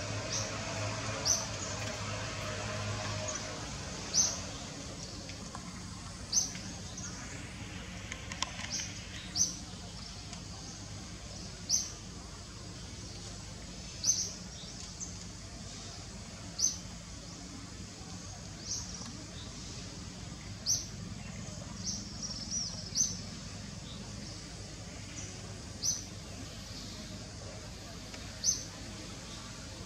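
A bird calling a short, high chirp over and over, about one every two and a half seconds, over a steady background hiss.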